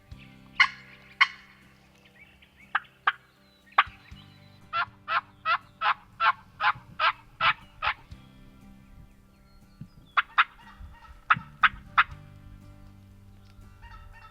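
Turkey yelping: a few single and paired yelps, then a run of about nine evenly spaced yelps roughly three a second in the middle, then a few more scattered yelps.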